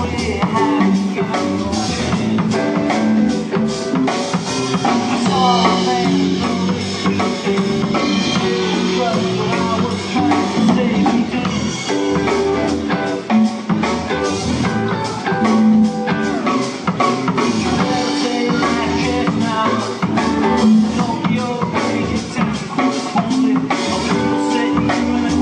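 Rock band playing: electric guitars and bass over a steady drum-kit beat.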